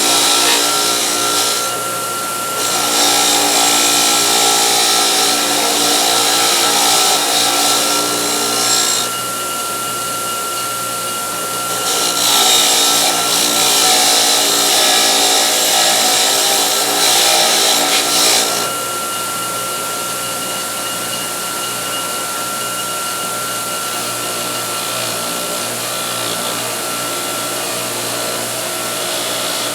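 Powered wire wheel running with a steady whine while a Craftsman ratchet part is pressed against it in stretches, each giving several seconds of harsh scraping hiss as rust is brushed off. The last stretch ends about 18 seconds in, leaving the wheel spinning on its own.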